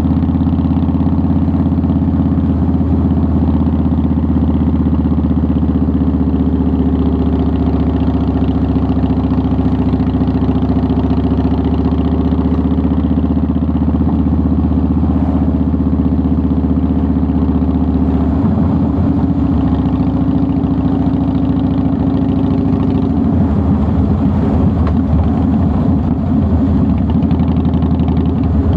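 2009 Harley-Davidson Softail Deluxe's air-cooled Twin Cam 96B V-twin running while the bike is ridden. Its note holds steady, then turns rougher and changes pitch about two-thirds of the way in as the throttle or gear changes.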